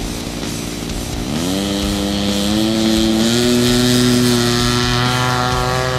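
RCGF 21cc twin-cylinder gasoline engine in a model airplane throttling up for the takeoff roll. Its pitch rises sharply about a second in, then climbs more slowly and holds at high power.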